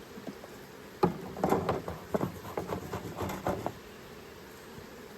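A quick run of knocks, clicks and scrapes from wooden beehive parts being handled, lasting a little under three seconds and starting about a second in.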